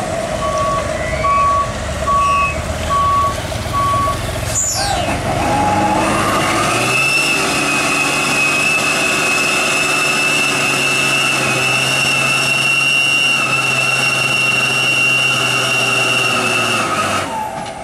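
Reversing beeps sound about five times in the first few seconds. Then, from about seven seconds in, the loaded Hino truck's diesel engine is held at high revs with a steady high whine as the truck strains, bogged in mud.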